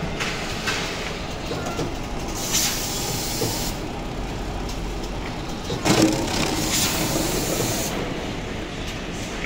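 Electric stainless-steel pineapple crusher running steadily, its screw auger drawing in and crushing pineapple pieces. A few short louder clatters stand out, the loudest about six seconds in.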